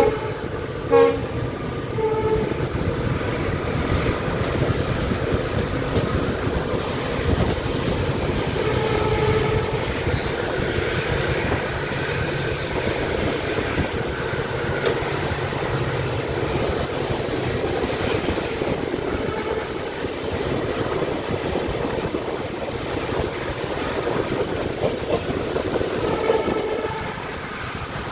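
Train running with a steady rumble of wheels on rail. The horn of the hauling WDP4B EMD diesel locomotive sounds at the start, with short blasts about a second and two seconds in, and again near the end.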